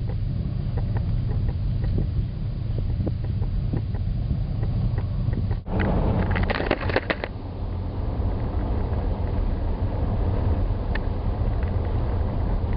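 Steady low rumble of a vehicle driving at road speed, with a short burst of rattling about six seconds in.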